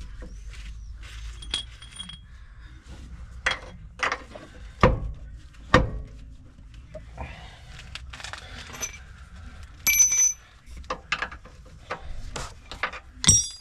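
Metal tools and steel suspension parts knocking and clinking in irregular taps, with a ringing metallic strike about ten seconds in and another near the end.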